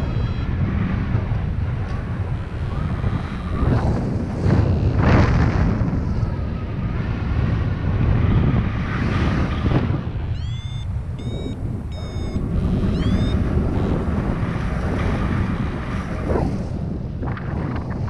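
Wind rushing and buffeting over the microphone on a paraglider in flight. About ten seconds in, the flight variometer gives a short run of four or so high pitched beeps, its climb signal that the glider is in lift.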